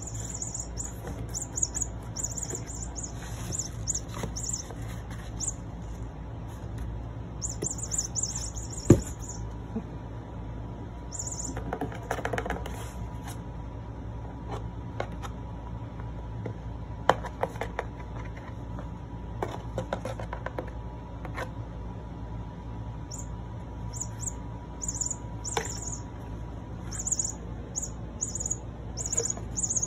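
A kitten playing in a cardboard box: scattered scratches and bumps on the cardboard, with one sharp thump about nine seconds in. Short runs of high chirping come and go over a low steady hum.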